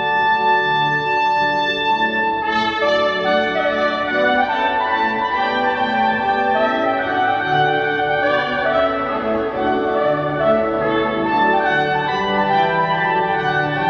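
Trumpet playing a Baroque aria melody over sustained accompaniment, the trumpet coming in about two and a half seconds in.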